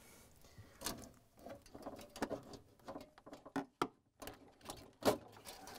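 Gloved hands handling a refrigerator's aluminum evaporator coil while fitting it into its back-wall clip: faint, irregular clicks, taps and scrapes, with a sharper click about five seconds in.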